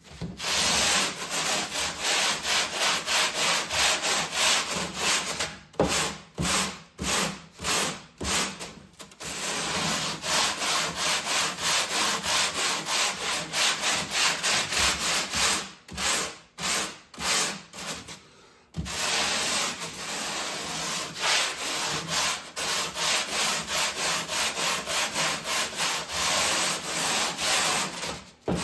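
40-grit sandpaper on an automotive long block rasping along the edge of a hard foam core sheet in quick back-and-forth strokes, sanding the edge to a 45-degree bevel. Twice, around six and sixteen seconds in, the strokes break into shorter separate passes with brief pauses.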